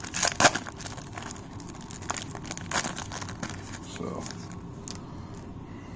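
Foil trading card pack being torn open and crinkled by hand: a few sharp crackles in the first half second, then softer scattered rustles as the cards are slid out of the wrapper.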